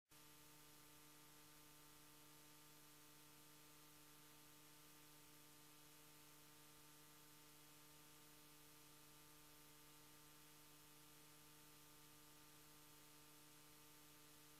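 Near silence: a faint steady hiss with a low electrical hum.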